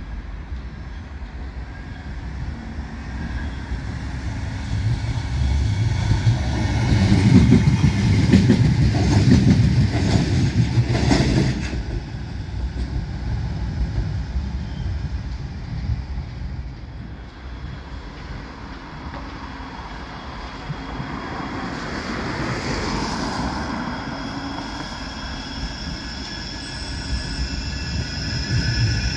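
Bombardier M5000 light-rail trams running on the line: a low rumble with wheel clicks swells and fades about a third of the way in. Near the end a tram draws close with a rising, high steady whine.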